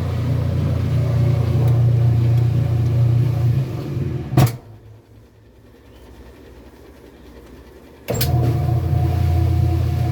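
Washing machine running with a steady low hum and rumble. A sharp click about four and a half seconds in cuts it off, and after another click about three and a half seconds later the hum is back.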